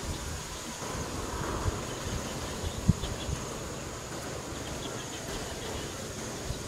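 Steady high-pitched buzz of insects, over low rustling noise, with one dull thump about three seconds in.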